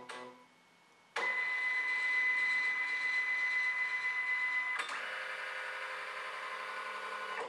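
Canon MF113w's flatbed scanner making a preview scan: a click, then from about a second in the scan mechanism runs with a steady high whine. After a click about five seconds in, it carries on more quietly at a different pitch.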